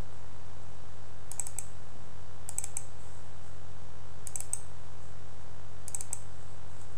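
Computer mouse button double-clicking four times, about a second and a half apart, as folders are opened in a file dialog. A steady low electrical hum runs underneath.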